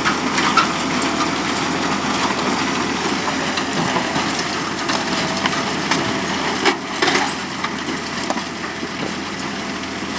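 Tractor engine running steadily while pulling a plough through stony ground, with a few short sharp clacks scattered through, the strongest about half a second in and a pair about seven seconds in.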